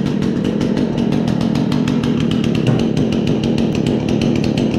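Chainsaw engine running at a steady speed with a fast, even pulsing and no revving.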